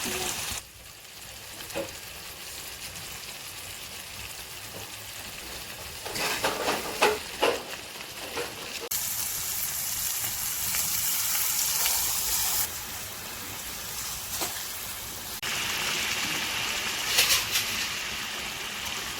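Food sizzling in hot oil in a pan, in several stretches that start and stop abruptly, with bursts of utensil clatter and stirring about a third of the way in and again near the end.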